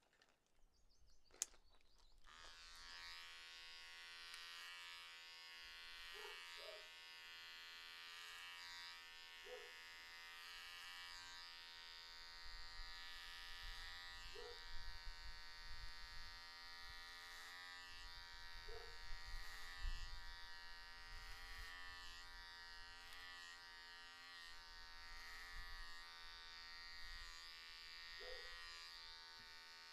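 A click, then Wahl electric hair clippers start up about two seconds in and buzz steadily as they trim a beard through a comb guard.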